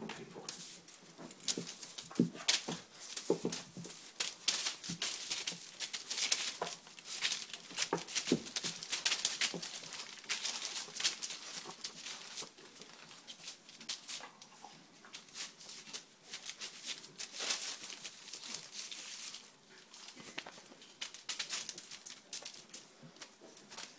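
Bullmastiff puppies scrabbling and shuffling in a plastic dog bed: a busy run of scratchy rustles and clicks from claws and bodies on the plastic and blankets, thinning out in the second half as they settle.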